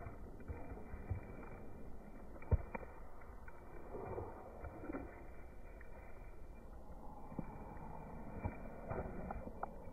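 Walking with a woven plastic sack carried on the shoulder: shuffling steps and rustling, with scattered soft knocks and one sharper knock about two and a half seconds in.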